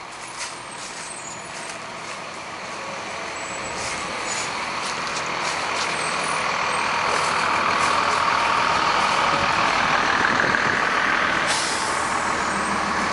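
Noise of a passing road vehicle, growing steadily louder over the first several seconds and then holding.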